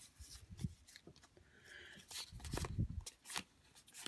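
Pokémon trading cards handled and flicked through by hand: a run of short card clicks and rustles, louder for a moment about two and a half seconds in.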